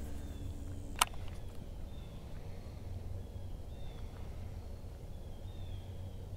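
A small bird chirping over and over in short, high calls. There is a sharp click about a second in.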